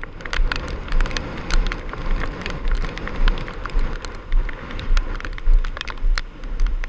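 Hard rain and gusting wind on the microphone: raindrops tick against it over a steady rushing hiss, with repeated low rumbling buffets of wind.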